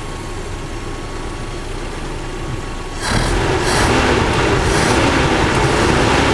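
1984 Toyota Hilux's carburetted petrol engine running while its carburettor mixture is being adjusted. About three seconds in it gets clearly louder, its note slowly rising and falling.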